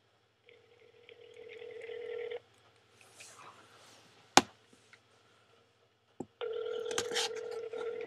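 Telephone ringback tone heard through a phone's speaker: two rings of about two seconds each, separated by about four seconds, as the call rings unanswered at the other end. A single sharp click falls between the rings.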